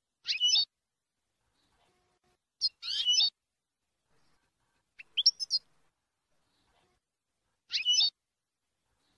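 European goldfinch giving four short bursts of rapid, twittering song notes, each about half a second long and spaced a couple of seconds apart. The song is in the Levantine ('Shami') style.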